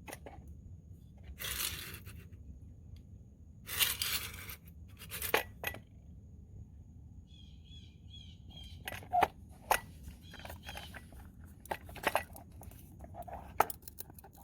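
A screwdriver working at a coin piggy bank: rustling handling noise, scrapes and a run of sharp clicks and knocks, with coins clinking inside.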